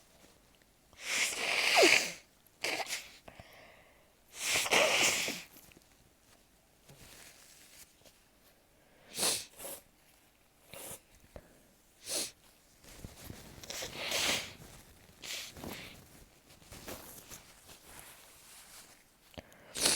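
A person's sneezing fit: two loud sneezes about two and five seconds in, then a run of shorter, quieter sneezy bursts and breaths, and one more sharp burst at the very end.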